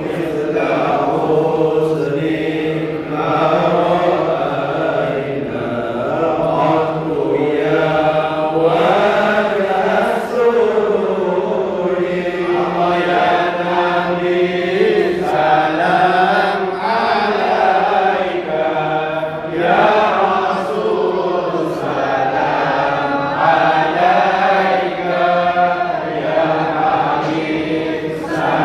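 Group of men chanting dikir (Islamic remembrance chant) together in unison, a continuous melodic chant with gliding pitch.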